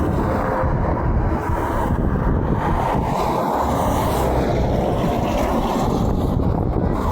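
Steady road traffic noise mixed with low wind rumble on the microphone, with no horn sounding.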